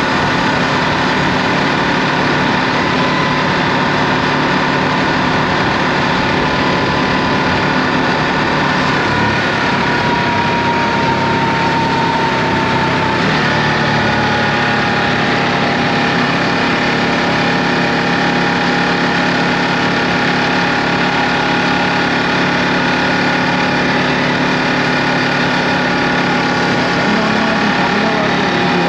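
Ducati Multistrada V2S's 937 cc V-twin engine running steadily on the move, over a steady rush of wind and road noise. Its pitch eases down slightly about ten to fourteen seconds in.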